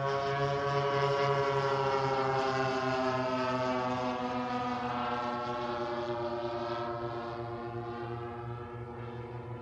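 Twin DLE-35RA single-cylinder two-stroke gasoline engines of an ESM F7F Tigercat RC model plane in flight, running as one steady, buzzing drone. It is loudest about a second in, then slowly drops a little in pitch and fades as the plane flies away.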